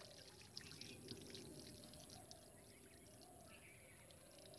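Faint pour of water from a hand pump's spout onto a concrete platform, with small splashes as fruit is rinsed under the stream.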